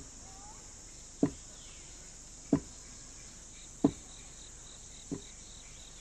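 Steady insect chorus with four dull thuds, evenly spaced about one and a quarter seconds apart.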